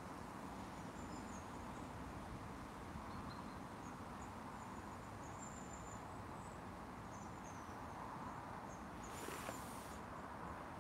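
Quiet lakeside ambience: a steady low rumble of light wind with faint, short high-pitched chirps scattered through it, and a brief rush of hiss about nine seconds in.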